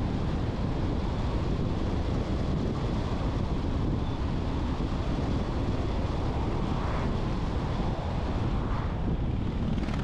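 Steady low rumble of wind and road noise from a car driving along a road, with a faint high whine on top.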